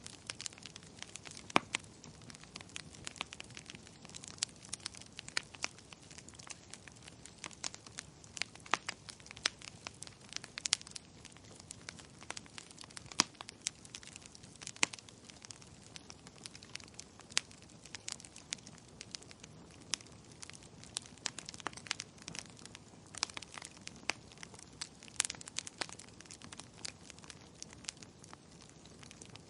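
Wood fire crackling in a fireplace: many sharp, irregular pops and snaps over a soft steady hiss of the flames.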